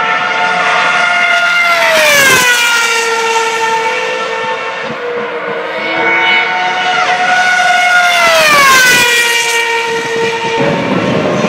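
High-pitched scream of 2012 Formula One cars' 2.4-litre V8 engines running on the circuit. The pitch holds steady, then falls steeply twice, about 2 seconds in and again about 8 seconds in.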